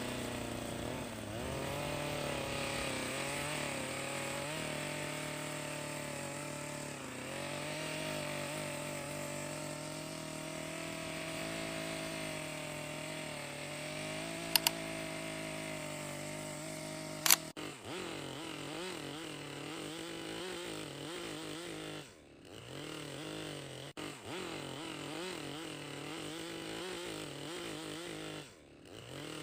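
Two-stroke chainsaw running at high speed, its pitch sagging and recovering as it bogs under load in the cut, wavering more in the second half. Two sharp clicks come near the middle, and the engine sound drops out briefly twice later.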